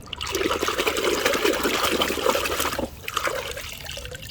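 Water running and splashing as a plastic toy truck is rinsed clean, strong for about three seconds and then dropping to a lighter trickle.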